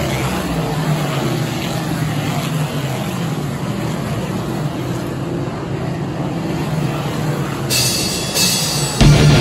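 Race car engines running with a steady drone. Near the end, loud heavy rock music comes in over them.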